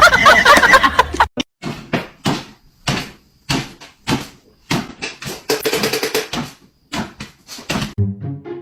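A series of sharp, irregular knocks and taps, about a dozen spread over several seconds, with a quick run of rattling taps in the middle. Music with a tune comes in near the end.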